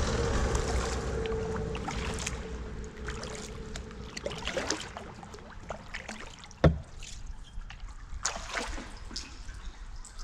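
Kayak on the water: paddle splashes and water trickling and dripping from the blades, with many small sharp splashes. A single sharper knock comes about two-thirds of the way through.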